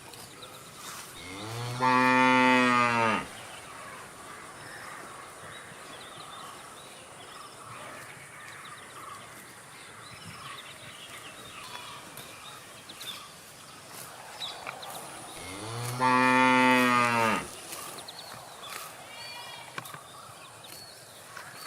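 A cow mooing twice, two long calls about fourteen seconds apart, each lasting a second and a half, with faint outdoor background sounds between them.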